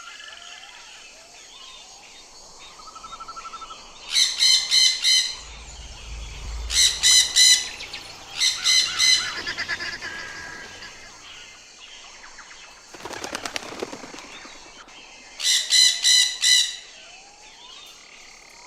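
Parrot squawking in four loud bursts, each a quick run of about four harsh calls.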